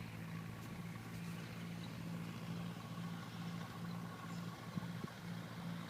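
A steady low mechanical hum, like a motor or engine running, with a slow regular pulse about twice a second.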